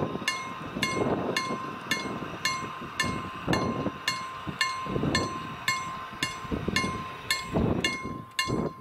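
Level crossing warning bell striking about twice a second, each stroke ringing on into the next; the ringing stops near the end.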